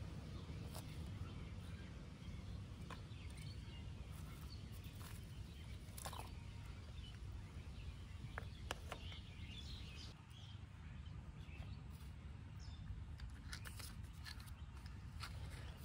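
Outdoor rural ambience: a steady low rumble with faint bird chirps and a few small clicks scattered through it.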